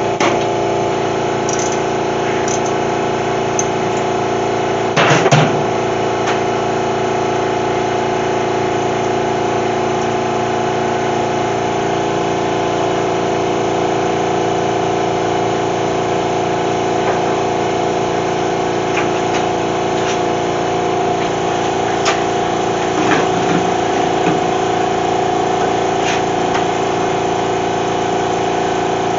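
Steady mechanical hum from a running motor, with a single sharp knock about five seconds in and a few light taps later.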